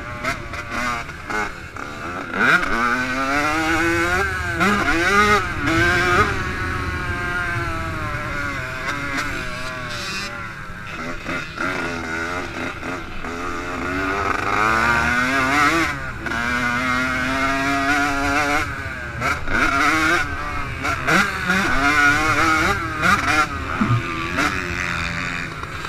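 Yamaha YZ85 two-stroke motocross engine being ridden hard, its pitch repeatedly climbing under throttle and dropping on gear changes and braking. Bursts of wind noise hit the microphone.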